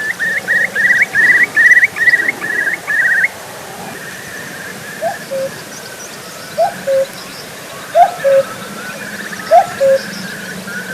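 Wild birds calling: a loud run of about a dozen quick, upward-hooked chirping notes for the first three seconds, then a low two-note call, the second note lower, repeated four times about a second and a half apart, with fainter birdsong behind.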